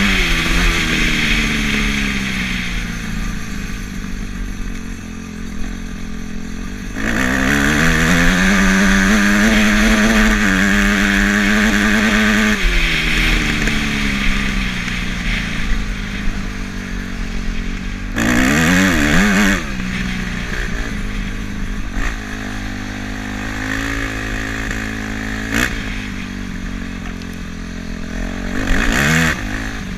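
Off-road vehicle engine running hard while riding over rough grass, revving up about seven seconds in and holding high for several seconds, then easing off. Two short rev-ups come later, one about two-thirds of the way through and one near the end, over steady wind and ground rumble.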